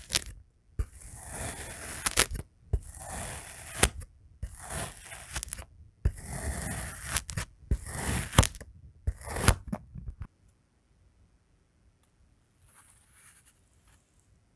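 A metal knife slicing through packed kinetic sand: a run of grainy, crunching cuts, each about a second long, with sharp clicks among them. About ten seconds in the cutting stops and it goes almost quiet, apart from a faint soft crumbling near the end.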